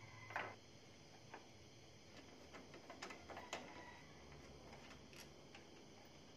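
Near silence with a few faint, scattered clicks and light taps of hand tools working on the radiator mounting bolts.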